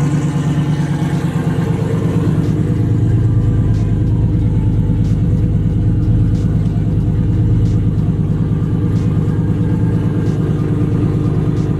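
Chevrolet pickup truck's engine running steadily with a low rumble as the truck drives, heard from inside the cab.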